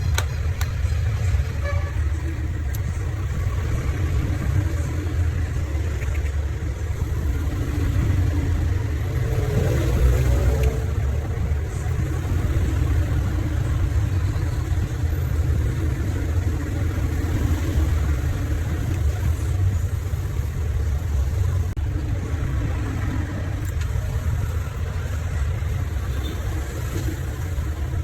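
A steady low rumble with a faint hiss above it, running on without a break.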